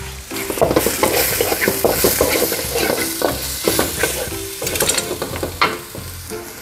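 Sliced shallots and garlic sizzling in oil in an aluminium wok, with a spatula scraping and clicking against the pan as they are stir-fried until fragrant.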